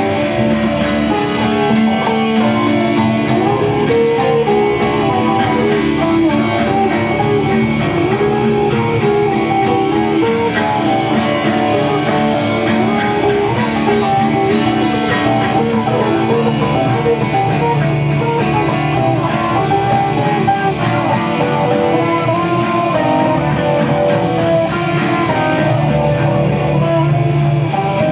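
Electric guitar and acoustic guitar playing together at a steady level, the acoustic strummed while the electric plays notes over it.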